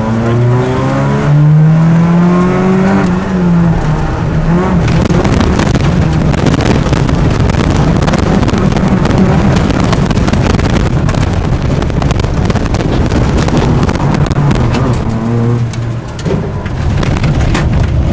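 Peugeot 106 S16 rally car from inside the cabin, its engine revving up hard near the start and then dropping back at a gear change. This is followed by a long stretch of loud road noise, crackling densely over the engine on the wet surface. Near the end the engine note rises again, with a brief lift.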